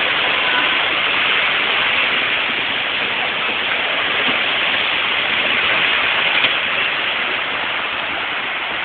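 Heavy rain falling steadily, a continuous even hiss.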